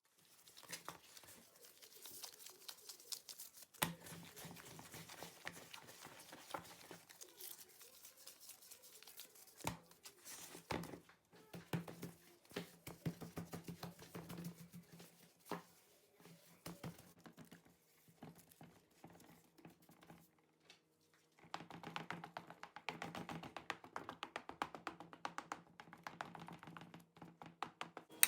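Quiet handling sounds of a pizza being topped by hand: scattered taps, clicks and rustles with a few sharper knocks, over a faint steady hum.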